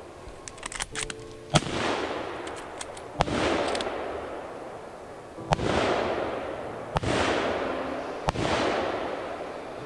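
Gunshots during a driven big-game hunt: five loud shots a second or two apart, each followed by a long rolling echo through the forest, with fainter, more distant shots in between.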